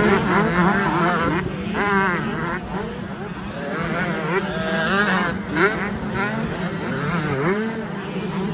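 Several 125cc two-stroke motocross bikes revving hard over the jumps, their engine pitch rising and falling again and again as riders open and close the throttle, over a steady drone of more bikes elsewhere on the track.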